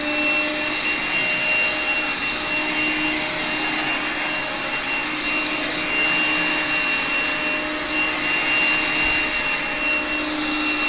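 Makita DCL180 18V cordless stick vacuum running steadily, a high motor whine over the rush of air, as its floor nozzle is pushed over carpet.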